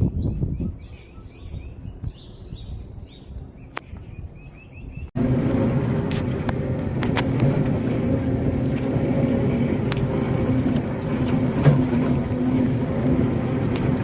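Birds chirping for about five seconds, then an abrupt cut to a loud, steady motor-vehicle hum and road noise with a few clicks.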